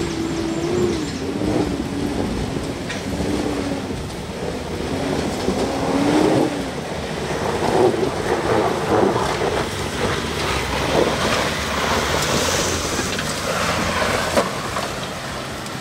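Mitsubishi L200 pickup crawling over rocks, its engine note rising and falling as the throttle is worked under load, over the crunch and scrabble of tyres on loose stones and dirt. About halfway through, the engine note gives way to louder crunching and knocks from the tyres and underside.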